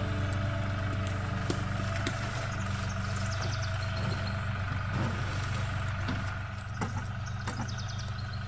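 An engine idling steadily, a low even drone, with a few faint taps.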